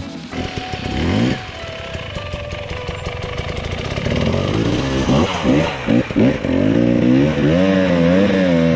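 Dirt bike engine running, revved briefly at the start and then settling lower. From about five seconds in the throttle is worked up and down repeatedly, so the engine note rises and falls again and again.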